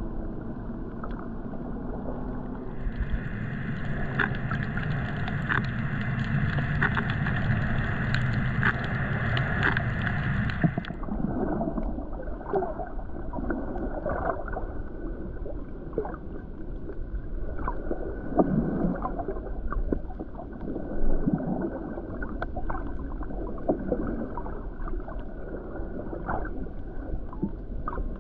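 Muffled underwater sound picked up by a camera while snorkeling over a coral reef: water gurgling and sloshing with many scattered small clicks and crackles. From about three to eleven seconds in, a brighter hiss joins, and a few low swells of water come later.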